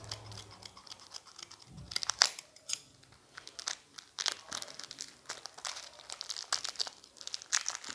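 Clear cellophane shrink-wrap being peeled and torn off a small card-deck box, crinkling with irregular crackles.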